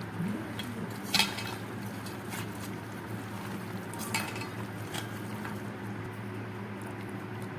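A metal spoon or ladle clinking against a cooking pot a few times while stirring, the loudest knock about a second in, over a steady low hum.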